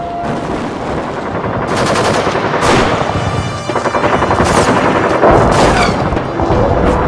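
Rapid machine-gun fire, thickening about two seconds in and growing louder.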